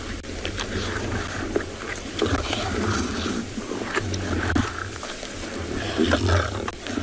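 Lions growling in low, rumbling pulses as they feed together at a warthog kill, with scattered crackling and tearing sounds of feeding.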